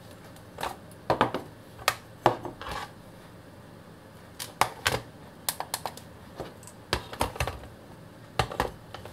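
Irregular plastic clicks and knocks as Philips Imageo LED candles are lifted off and set back onto their plastic charging base and the base is turned over on a tabletop.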